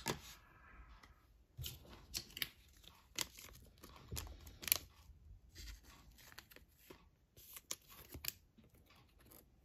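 Plastic card sleeve rustling and scraping as a trading card is slid into it and handled, in scattered short scrapes and clicks.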